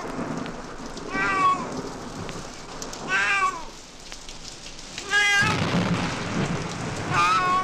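A cat meowing four times, about two seconds apart, each call short and bending in pitch, over a storm sound effect of steady rain and thunder. The low thunder rumble grows louder about five seconds in.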